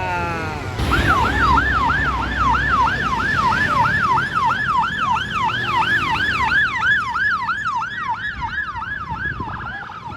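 Vehicle siren in fast yelp mode: a tone swooping up and down about three times a second, starting about a second in and growing a little fainter toward the end, over a low rumble of traffic.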